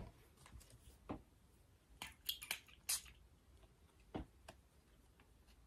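Perfume atomizer spraying in a quick run of short hissing puffs about two seconds in, with faint knocks of the glass bottle and paper card being handled.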